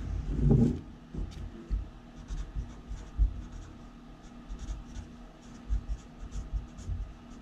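Marker pen writing on paper: a run of short scratchy strokes as words are written, with soft bumps of the hand on the desk. A brief low thump about half a second in.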